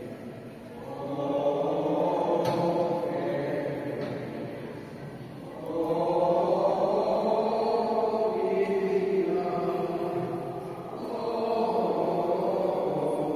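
A group of voices chanting in long held phrases. The sound swells and falls away every few seconds.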